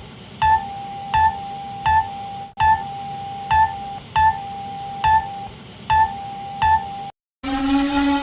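Electronic emergency alarm tone: a steady mid-pitched tone broken by short, higher, louder beeps about every three-quarters of a second, repeating. It cuts off shortly before the end, and after a brief silence a loud low tone with many overtones begins, like a siren or horn starting.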